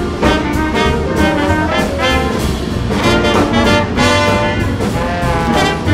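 Background music with a steady beat, led by brass instruments.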